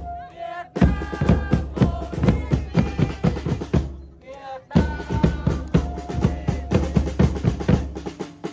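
Background music with a fast drum beat and a melody over it, dropping out briefly at the start and again about four seconds in.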